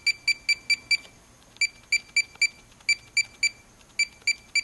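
Handheld multimeter's keypad beeping at each press of the arrow button as the trend-graph cursor is stepped along: short high beeps in quick runs of three to five, about four or five a second, with brief pauses between runs.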